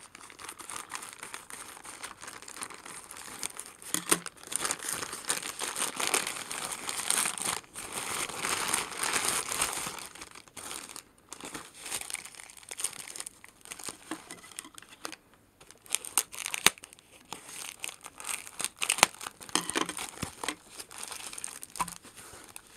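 Parcel packaging being unwrapped and torn open: plastic crinkling and rustling, with irregular tearing and sharp clicks.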